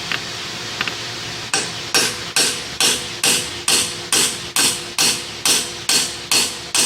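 Hammer blows on metal in a steady rhythm of about two a second, each with a short metallic ring, starting about a second and a half in. They are being used to drive on a stubborn bolt.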